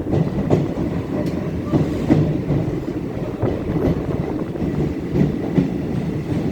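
Passenger train running through a long rail tunnel, heard from aboard: a steady rumble of wheels on the track with irregular clicks and clacks of the rail joints.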